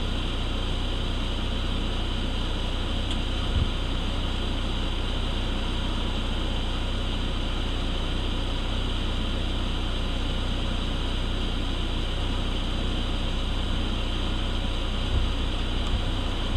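Steady hiss with a low hum underneath, unchanging throughout, and one faint knock about three and a half seconds in.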